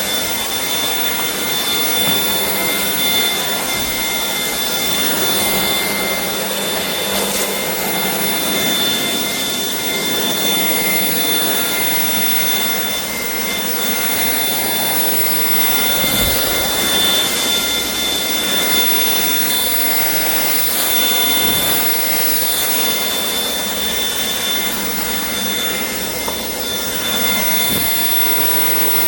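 Shark PowerDetect cordless stick vacuum running steadily: an even rushing motor-and-airflow noise with a steady high-pitched whine on top.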